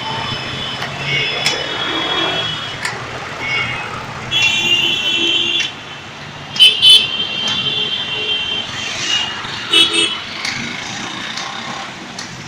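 Street traffic running by, with vehicle horns honking several times: a long honk about four seconds in, two short, loud honks near seven seconds and another near ten.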